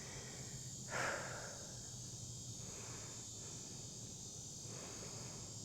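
Faint, steady high-pitched insect chorus, with a soft brief noise about a second in.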